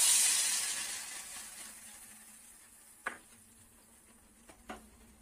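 Hot ghee with fried cashews and raisins poured from an iron ladle into a pot of sweet pongal, sizzling sharply at once and fading away over about two seconds. A single light knock about three seconds in.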